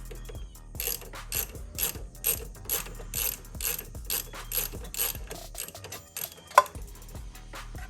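Ratchet wrench clicking in a steady run of strokes, about two a second, as a bolt on the brake linkage is worked out, with one sharper click near the end.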